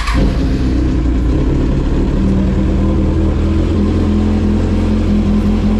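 Kawasaki Z1000's inline-four engine, fitted with an SC-Project full titanium exhaust, catching on a cold start with a sharp burst right at the beginning, then idling steadily and loudly.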